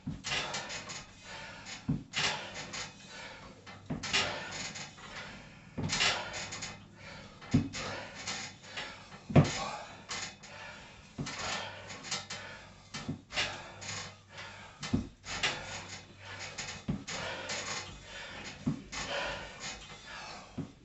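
Pull-ups on a steel power tower using iron lifting hooks: a short breath and a knock or creak from the frame and hooks with each rep, about one every two seconds. The loudest knock comes about nine seconds in.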